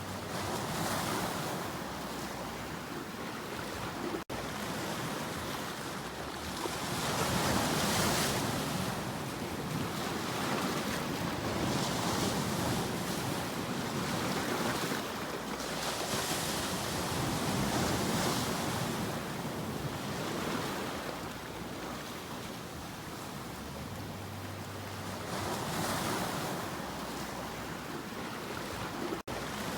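Ocean waves breaking on the shore, the surf swelling and falling away every few seconds. The sound cuts out for an instant twice.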